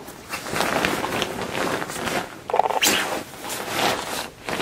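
Fabric rustling and crinkling as a down comforter's shell and a fleece blanket are handled, with a few sharper crackles.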